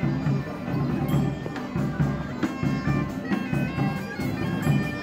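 Bagpipes playing a folk tune over a low beat that pulses about twice a second.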